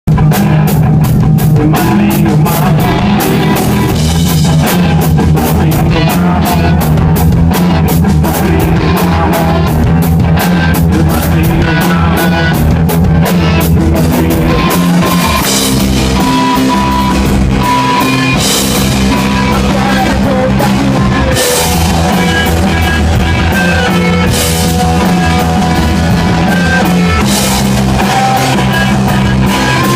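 A rock band playing live: drum kit, guitar and bass, loud and continuous, with fast, evenly spaced drum hits in the first few seconds and held guitar notes later on.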